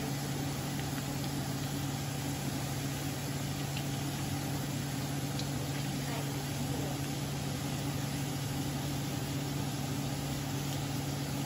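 Minced garlic sizzling in oil in a nonstick wok, with small crackles as it is stirred with a wooden spatula, over a steady low hum.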